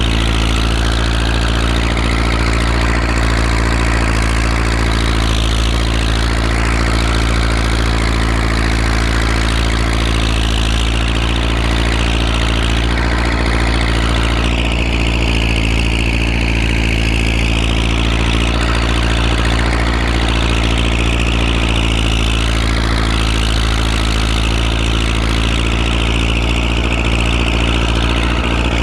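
IMT 560 tractor's diesel engine idling steadily, its pitch unchanging throughout.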